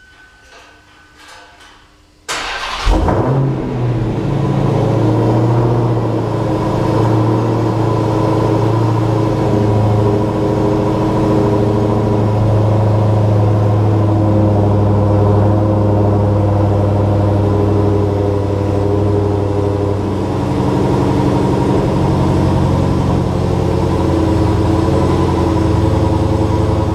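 2017 Dodge Challenger SRT Hellcat's supercharged 6.2-litre HEMI V8 cold-starting about two seconds in, after a few faint clicks. It fires with a brief rise in revs, then settles into a steady, loud cold idle through the stock exhaust, with the exhaust valves still open.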